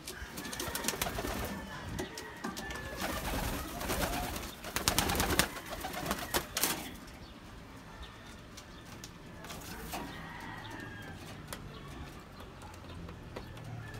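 Pigeons cooing, with a loud burst of wing flapping in the middle as a pigeon flutters its wings over another.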